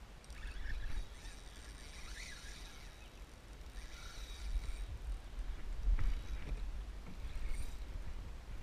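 Fishing reel's drag paying out line in a buzzing rasp as a hooked snook pulls on the bent rod, from about half a second in until near the middle, with water splashing against the kayak hull and a few light knocks after.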